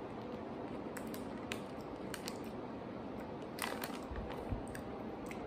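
Crisp, irregular crunches of hard candied sweet potato sticks (imo kenpi) being chewed: a scattering of sharp clicks with a louder cluster about three and a half seconds in.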